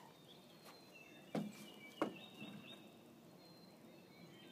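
Two dull knocks about two-thirds of a second apart: a long stick held crosswise in a dog's mouth bumping against the railing posts of a narrow wooden footbridge. Faint birdsong in the background.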